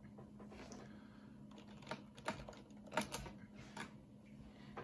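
Typing on a computer keyboard: an uneven run of key clicks, the sharpest about two and three seconds in, with a steady low hum underneath.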